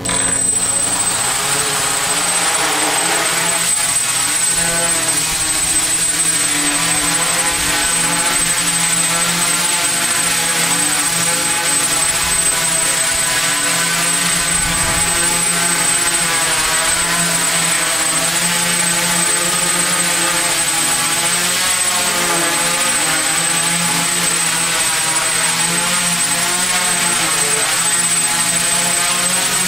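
Quadcopter's four brushless motors and propellers, one a DJI 2212 running among three 2215s, start abruptly and hold a low hover. The propeller buzz wavers in pitch as the throttle is corrected, over a steady high whine. The mismatched motor does not upset the flight; the copter works just fine.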